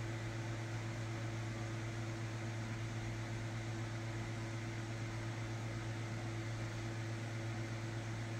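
Steady low electrical hum with a constant hiss, unchanging throughout, like a running fan or appliance in the room.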